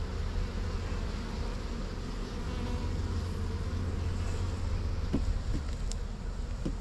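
Honey bees buzzing steadily in large numbers: a wild colony, freshly dug out of its ground nest, swarming on and around a wooden hive box.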